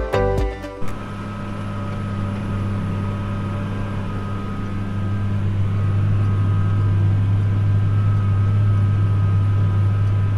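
Tractor engine running steadily under load while pulling a field cultivator, a low drone with a faint high whine above it, growing a little louder about halfway through. Music cuts off about a second in.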